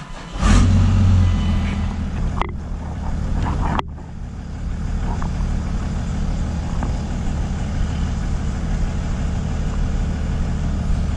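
Dodge Ram 2500's Cummins inline-six turbodiesel starting about half a second in, flaring briefly and then settling into a steady low idle rumble as the truck backs up.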